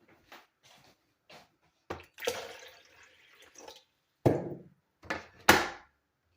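Water being poured into a coffee maker's reservoir for about a second and a half, among small clicks and knocks, followed by three loud thuds of things being handled and set down.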